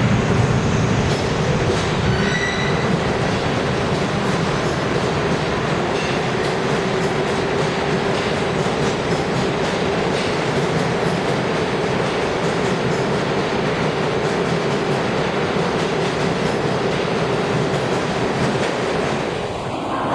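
New York City subway train running along the platform: a loud, steady rumble of wheels on rail with a constant hum, and a brief wheel squeal about two seconds in.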